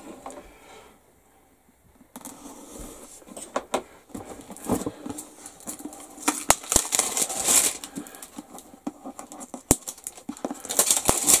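Plastic shrink-wrap being peeled and crumpled off a model kit box: loud crinkling and rustling with many sharp crackles, starting about two seconds in.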